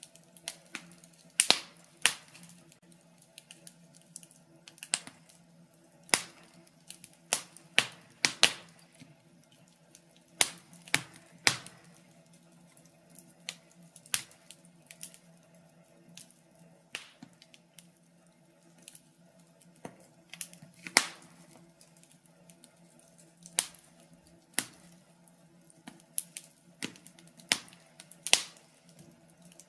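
Wood fire crackling in a fireplace: irregular sharp pops and snaps, sometimes several in quick succession, over a faint steady low hum.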